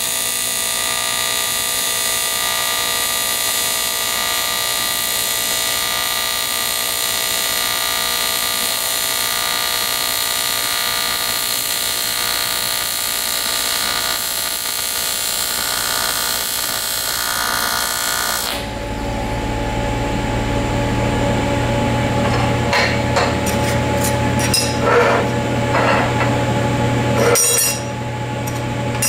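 AC TIG welding arc on aluminum buzzing steadily, cutting off suddenly about two-thirds of the way through. After it, a steady low hum and a few light clicks and scrapes.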